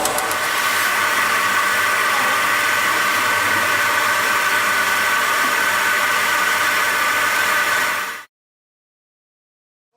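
Chocolate tempering machine running: a steady whirring hum with a few held high tones. It cuts off abruptly about eight seconds in.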